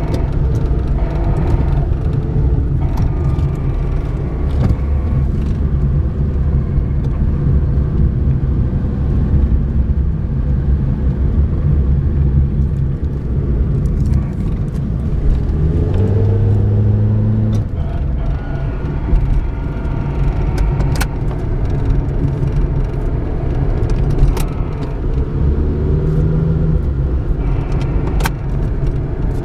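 Suzuki Alto automatic driving, heard from inside: a steady low engine and road rumble, with pitched tones that slide up and down around the middle and again near the end, and a few sharp clicks. This is the deceleration noise the owner cannot place, whether from the automatic transmission, differential, bushes or shafts.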